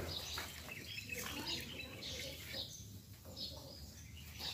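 Fingers scraping and raking through loose potting soil, a dry irregular scratching, with birds chirping in short repeated calls in the background.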